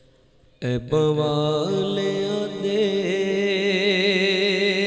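A man's voice singing an Urdu naat, a devotional song in praise of the Prophet, into a microphone. It comes in suddenly about half a second in and holds long melodic notes with a wavering vibrato.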